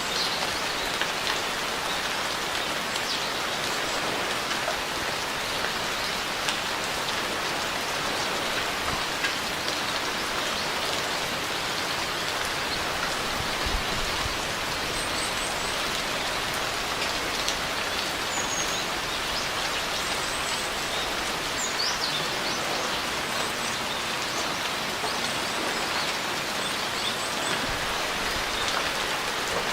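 Steady rain falling on surfaces: an even hiss with scattered individual drop taps.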